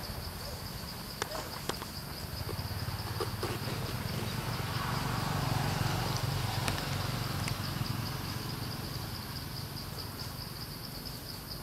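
Steady insect chorus in forest, a high pulsing buzz that runs without a break. Under it a low rumble swells through the middle and fades, with a few faint clicks in the first couple of seconds.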